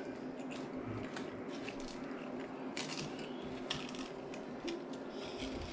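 Aluminium foil wrapper crinkling in short, irregular crackles as a soft taco is handled on it, with chewing between.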